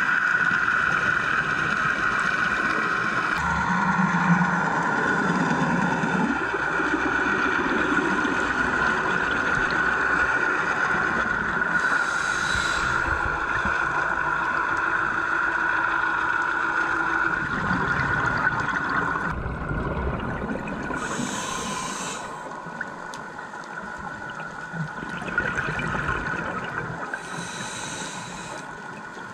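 Underwater sound of a scuba dive: a steady hum, with the filming diver's regulator exhaling a rush of bubbles three times, several seconds apart.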